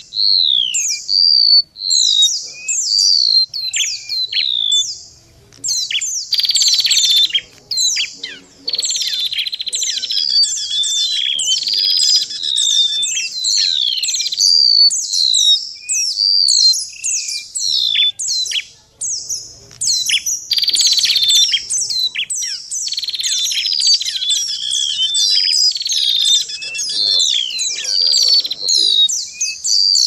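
Bird-lure recording of a mixed chorus of golden-bellied gerygone, white-eye and tailorbird calls: rapid, high, downward-sliding chirps several a second, overlapping, with buzzy trills now and then.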